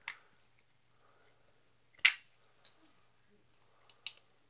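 Handling noise: three short, sharp clicks or light knocks about two seconds apart, the middle one loudest, over a faint steady hum.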